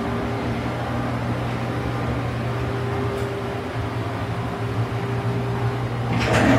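A steady mechanical hum with a low tone and a fainter higher tone, as from an appliance or fan motor running. A short, louder rustle or knock comes just before the end.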